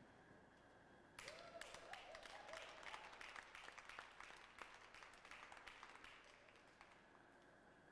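A small crowd of spectators clapping, starting about a second in, strongest for the next few seconds and thinning out near the end.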